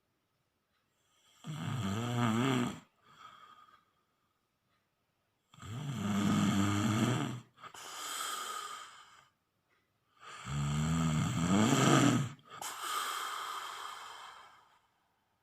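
Snoring: three rattling snores on the in-breath, about four to five seconds apart, each followed by a softer breathy out-breath.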